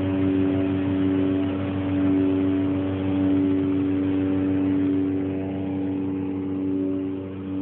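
Loud, steady drone of several held tones over a rushing haze: one of the unexplained "strange sounds in the sky", which has gone on unbroken for an hour.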